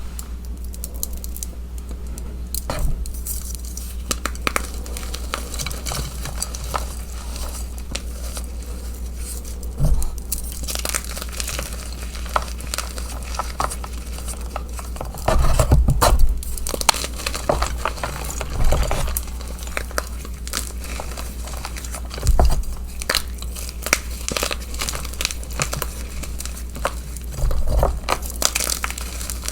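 Gym chalk chunks and reformed chalk blocks being crushed and crumbled: dense, irregular crisp crunches and crackles, with a few heavier thuds, over a steady low hum.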